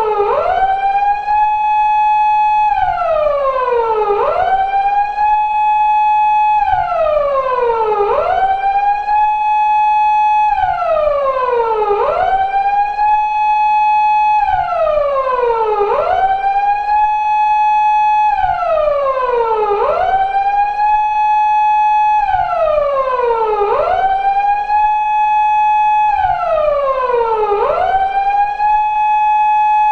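Japanese police car siren of the kind used on 170- and 180-series Toyota Crown patrol cars, wailing in a steady four-second cycle: a quick rise in pitch, a held high tone, then a slow fall, over and over.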